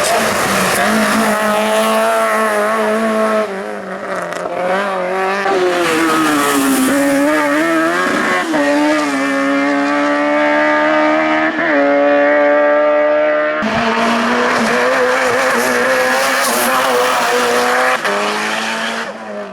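Hill-climb race car engine under hard acceleration, its revs climbing and falling back through several gear changes. About two-thirds of the way in, the sound cuts abruptly to another engine run at high revs, which fades near the end.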